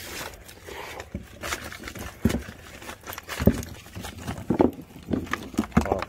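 Irregular rustling and knocking as hard, dried bracket fungi are tipped out of a plastic mesh bag and handled over paper in a cardboard box, the woody pieces clacking against each other.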